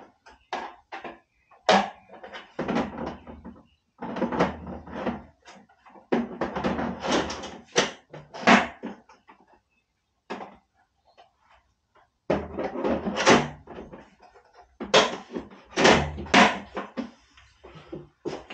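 Irregular plastic clunks, knocks and clicks of handling: the battery compartment lid and 80V battery packs of a Greenworks electric mower being taken out and reseated while an unresponsive battery is checked. The mower's motor is not running.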